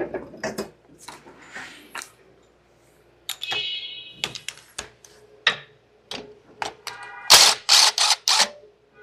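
Hand ratchet clicking on a 10 mm bolt of an EV front-motor oil pump, among clinks and rattles of hand tools. There is a fast run of ratchet clicks about three and a half seconds in and a cluster of louder strokes near the end.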